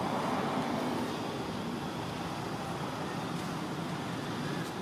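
Steady outdoor background rumble and hiss with no distinct events.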